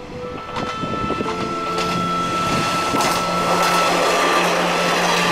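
Kanto Railway KiHa 2200-series diesel railcar approaching and passing close by, its engine and wheels on the rails growing louder about two seconds in and running loudest as it goes past.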